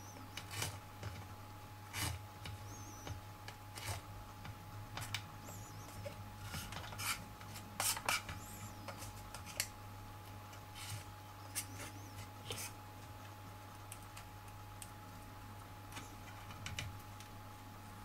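A small carving knife cutting and trimming thin pieces of watermelon rind on a wooden cutting board: irregular clicks and scrapes as the blade nicks through the rind and taps the board, thickest about halfway through.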